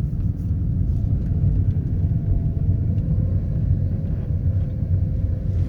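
Car interior noise while driving: a steady low rumble of the engine and tyres on the road, with a faint steady hum that comes in about halfway through.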